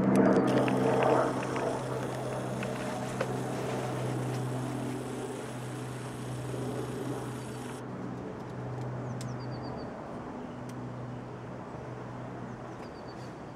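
Small helicopter flying away, its steady droning hum fading gradually.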